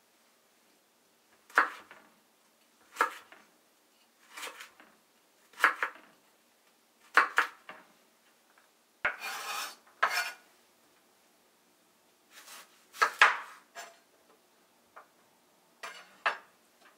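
Kitchen knife chopping carrots on a wooden cutting board: separate sharp knocks of the blade on the board, about one every second and a half, with one longer stroke about nine seconds in.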